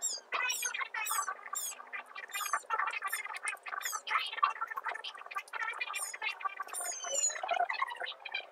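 Cat crunching dry kibble from a plastic bowl in a rapid crackle of chews. Over it, birds chirp in quick, high notes that fall in pitch, several at a time.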